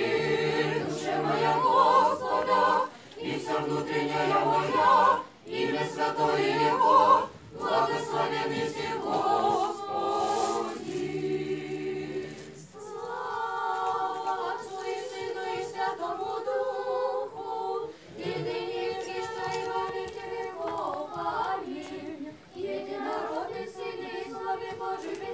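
Small church choir of women's and girls' voices singing Orthodox church chant a cappella, in short phrases with brief breaths between them. A steady low note is held under the melody through the first half and stops about halfway, after which the higher voices sing on alone.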